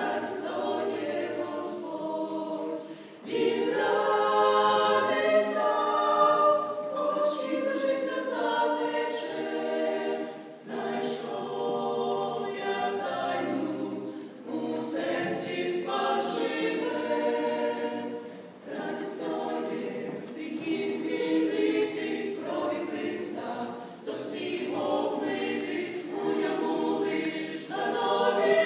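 A small mixed vocal group of women and men singing a Christian song a cappella in harmony through microphones, in phrases of a few seconds with short breaks between.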